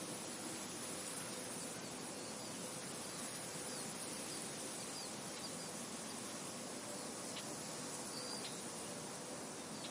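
Steady wind hiss, with a few faint, short, high chirps scattered through it.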